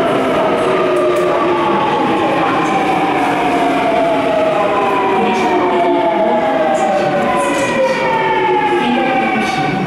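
Busan Metro subway train pulling into the station, its electric traction motors whining in several tones that fall steadily in pitch as it slows, over the rumble of the cars.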